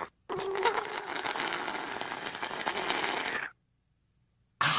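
Cartoon sound effect of a drink slurped up through a straw: a steady, rattly slurp of about three seconds, then a shorter one near the end.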